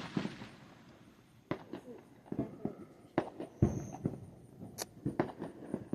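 Fireworks: a crackling hiss that dies away within the first second, then a few scattered sharp pops and bangs at irregular gaps.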